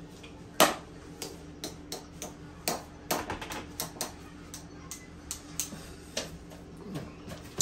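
Irregular light clicks and knocks, about one or two a second and the loudest about half a second in, over a steady low hum.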